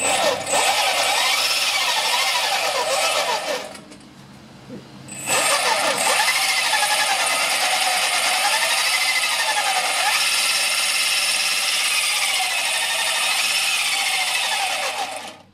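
Turnigy L5055B brushless outrunner motor whining as it spins the scooter's rear wheel through a 1-to-3 belt reduction. The pitch rises and falls as the thumb throttle is worked. It stops briefly about four seconds in, then runs for about ten seconds more, smoothly now that the belt is tightened.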